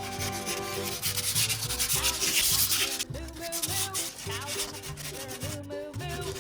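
Wooden guitar neck being sanded, a scratchy rubbing hiss in strokes that is strongest in the first half, over background music with a steady beat.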